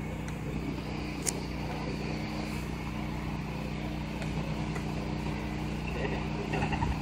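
A motor or engine running steadily off-camera, a low even hum, with one sharp click about a second in.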